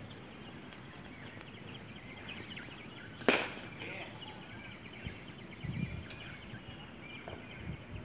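Outdoor ambience: a steady faint background with distant bird calls, and one sharp click a little over three seconds in.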